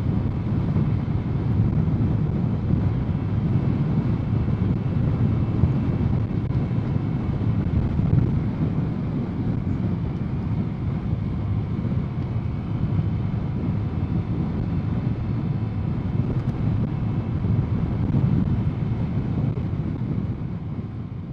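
Wind buffeting the microphone over the steady running and road noise of a Honda Click scooter under way. It fades out near the end.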